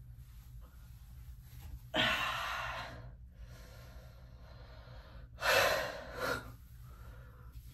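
A woman's heavy exhaled sighs of frustration: one long breath about 2 seconds in, then another with a short follow-up breath later.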